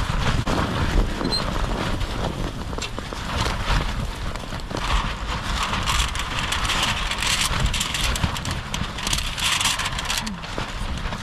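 Gale-force wind buffeting a Hilleberg Nallo 2 tent, heard from inside: a steady low rumble of wind with the flysheet flapping in rapid, irregular slaps.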